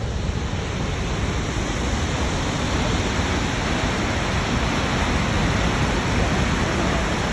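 Snoqualmie Falls rushing: a steady, dense noise of falling water with no breaks.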